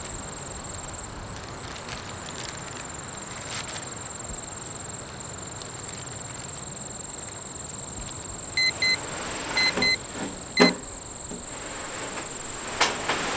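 Quiet ambience with a thin, steady high whine, then a digital alarm clock beeping: short, sharp electronic beeps in a pair, another pair and a single, starting about two-thirds of the way in.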